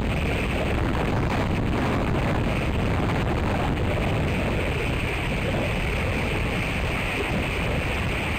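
Strong wind on the microphone: a steady low rumble with a hiss over it.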